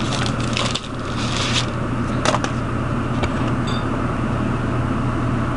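Rustling of packaging and a sharp click as the adapter's driver CD is taken out of the box, over a steady low hum.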